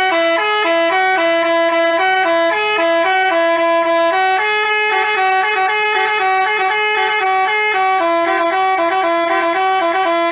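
Telolet basuri multi-tone bus horn playing a tune, loud held notes stepping from one to the next in two voices a step apart, with no break.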